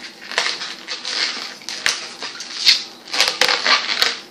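White latex twisting balloon being tied off and handled, the rubber rubbing against the fingers in a string of short rustling bursts with small clicks.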